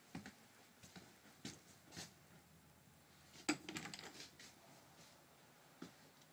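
Faint footsteps and small knocks inside an RV's interior, with a short rattling clatter of clicks about three and a half seconds in, the loudest sound.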